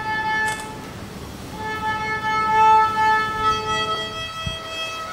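A young child playing the violin: slow, held bowed notes with a short break about a second in and a change of note near the end.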